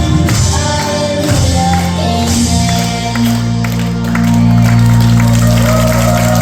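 Contemporary worship song music with singing, settling into a long held chord about two and a half seconds in.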